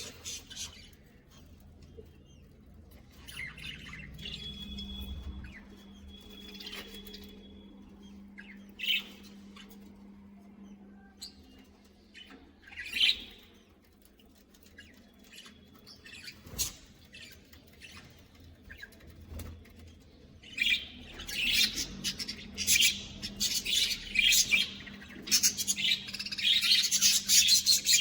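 A colony of budgerigars chirping and squawking: scattered single calls at first, then busy, louder chatter from many birds over the last third.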